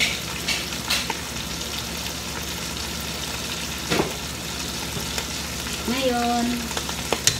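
Food sizzling steadily as it fries in a pot on the stove, with a few sharp clicks scattered through.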